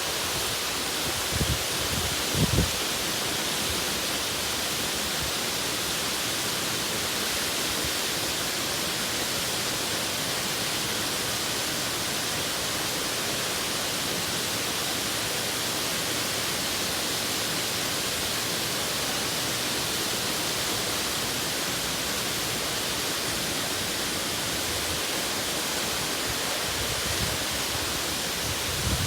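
Waterfall: water falling in a steady, even rush. A couple of brief low thumps come about two seconds in.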